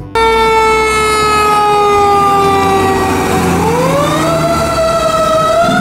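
Fire truck siren wailing: one long tone that slowly falls in pitch for about three and a half seconds, then rises again and holds.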